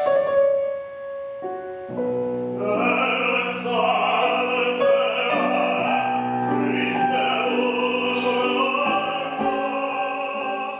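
Grand piano plays a few notes alone, then about three seconds in an operatic tenor voice enters, singing long held notes in full classical style over the piano accompaniment.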